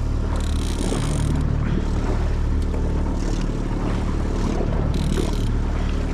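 Boat's outboard motor running steadily at trolling speed, with a few short patches of hiss over it.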